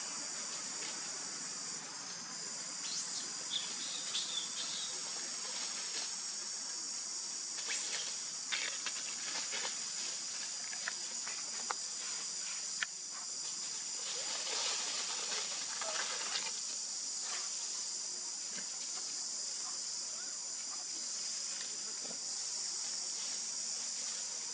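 Steady high-pitched insect chorus, with a few short clicks and brief higher sounds scattered over it.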